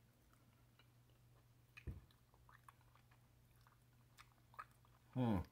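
An opossum chewing cat food from a bowl: faint, irregular small clicks. There is a dull knock about two seconds in, and near the end a brief, louder sound that slides down in pitch.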